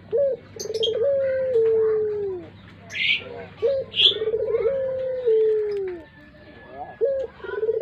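Puter pelung (Barbary dove) cooing: each call is a short note, a quick rolling trill, then a long drawn-out note that slides down in pitch, repeated about every three and a half seconds. Other small birds chirp briefly in the background.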